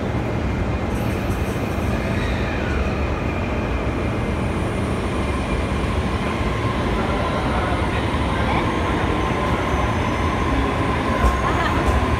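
Electric commuter train running slowly alongside a station platform: a steady rumble of its running gear, with a whine near 1 kHz that builds from about halfway through.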